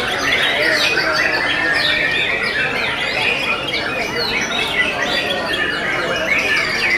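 Many caged white-rumped shamas singing at once, a dense unbroken tangle of overlapping whistled phrases with no pause.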